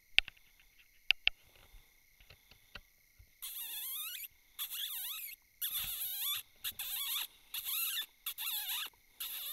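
Predator call giving a series of about seven high, wavering rodent-distress squeaks, each under a second long, starting about three seconds in, to lure a coyote. A few sharp clicks come before the squeaks.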